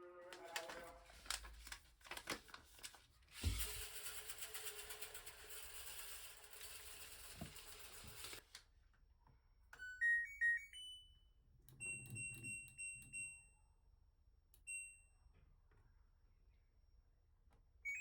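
Washing machine control panel beeping as its buttons are pressed: a short rising run of electronic tones, then several single beeps. Before that come a few clicks and about five seconds of rushing noise that stops abruptly.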